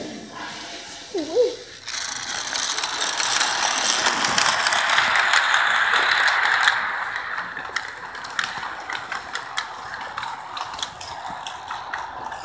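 Lionel toy train running fast on its track: a clattering rattle of wheels on the rails full of quick clicks. It gets loud about two seconds in as the train passes close by, and drops to fainter clicking a little before the halfway point.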